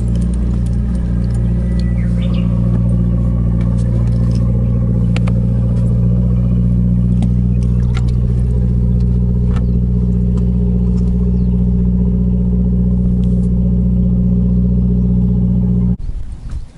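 A motor's engine running at a steady speed, loud and unchanging, most likely a nearby boat's engine. It stops abruptly near the end. Faint clicks sit over it.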